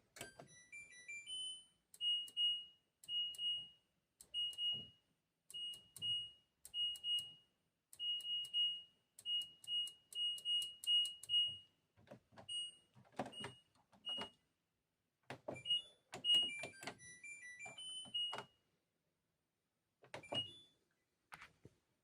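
Washing machine control panel beeping: a short tune of stepped electronic tones at the start, then a long run of single high beeps, each with the click of a button being pressed, and another short beep tune about three quarters of the way in.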